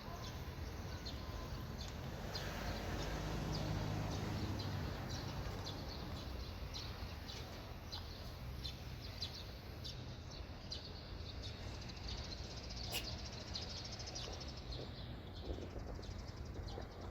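Small birds chirping in short, repeated calls over steady outdoor background noise.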